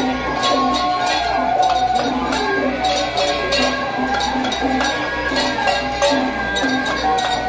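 Traditional temple-procession percussion accompanying a masked dance: a metallic clanging beat about twice a second, with cymbal-like crashes and a wavering melodic line above it.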